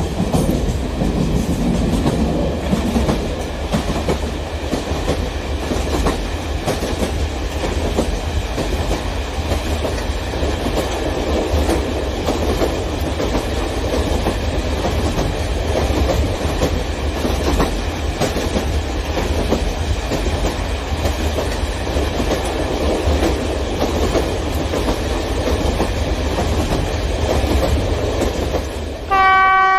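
A model passenger train rolling steadily along the track, a continuous rumble with fine clicking from the wheels. Near the end a horn starts, one steady note.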